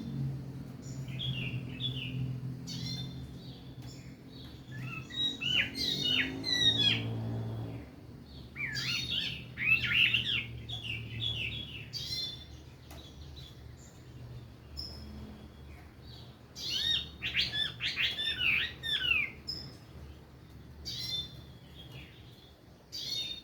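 Chinese hwamei singing in three main bursts of rapid, varied whistled phrases, with pauses and scattered softer notes between them.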